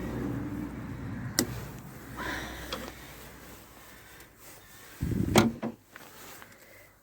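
Hands-on work noises: a sharp click about a second and a half in, some scraping, and a heavier thud about five seconds in, over a low hum that dies away after it.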